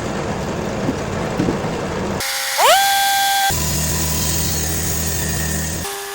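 Cooks AC36 band sawmill running, with abrupt changes in its sound a few times. A little over two seconds in, a whine rises in pitch and then holds steady.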